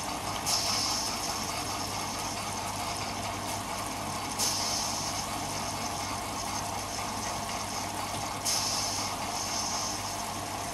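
Jensen 20G live-steam model engine running steadily, throttled down, with a fast even beat of exhaust steam. A louder hiss of steam swells up three times, about every four seconds, each for about a second.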